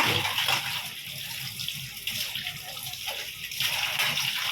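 Tap water running and splashing over dishes as they are rinsed.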